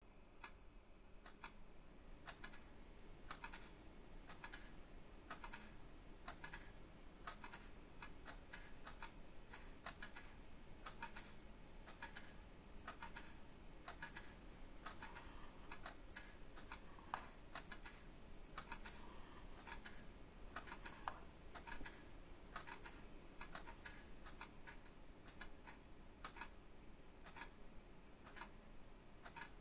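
Many clocks ticking together, faint and slightly out of step, about two or three ticks a second.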